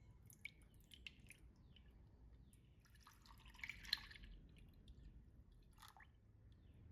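Faint kitchen handling sounds: a few light clicks and taps, and a short wet, splashy liquid sound about three seconds in with a sharp click in the middle of it.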